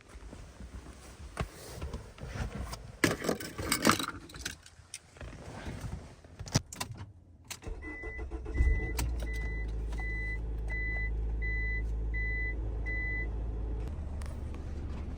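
Rustling and handling noises, then the van's engine starts and runs steadily while a dashboard warning chime beeps eight times, about one every three-quarters of a second.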